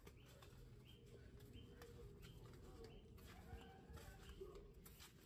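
Near silence: faint outdoor ambience with soft high chirps repeating about once a second and a few faint clicks.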